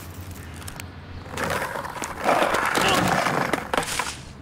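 Skateboard wheels rolling on rough tarmac: a gritty rolling rush that builds from about a second and a half in and is loudest in the middle, then a few sharp knocks of the board near the end.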